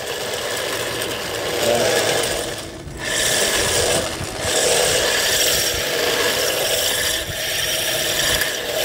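Electric RC drift car running on asphalt: a faint steady motor whine over the rough scraping of its hard plastic wheels sliding on the road surface. The front wheels are pushing wide (understeer), since the plastic front wheels give no grip. The noise dips briefly just under three seconds in, then picks up again.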